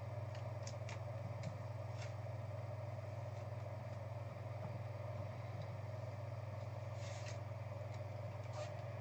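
Steady low hum under faint plastic crinkles and light clicks as a trading card is slid into a clear plastic sleeve and a hard plastic card holder. There are a few clicks in the first two seconds and a longer rustle about seven seconds in.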